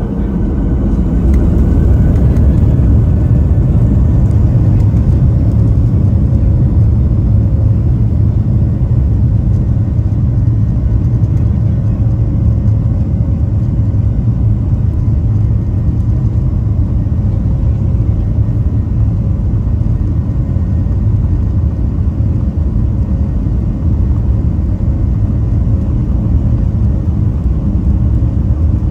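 Boeing 737-600's CFM56-7B turbofan engines at takeoff thrust, heard from inside the cabin as a loud, steady low rumble that swells over the first couple of seconds, with the aircraft rolling down the runway.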